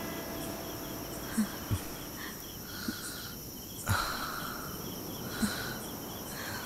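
Crickets chirping in a steady, even rhythm, with a few short, soft thuds spaced through it.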